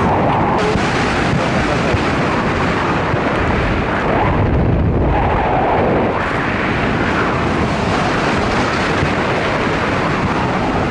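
Wind rushing hard over the camera's microphone during a tandem skydive: a loud, steady rush with no pause.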